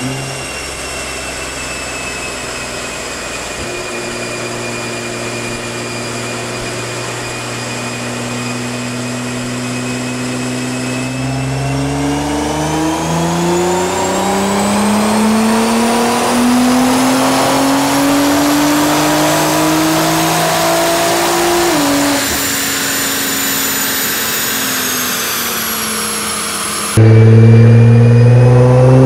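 Nissan GT-R R35's 3.8-litre twin-turbo V6 running on a four-wheel-drive chassis dyno: the revs climb slowly through a long pull, with a high whine rising alongside, then drop and fall away after about 22 seconds. Near the end the sound cuts to a second GT-R, louder, with its revs rising.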